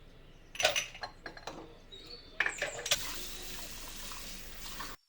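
Dishes and cutlery clinking, then a kitchen tap running steadily that cuts off abruptly near the end.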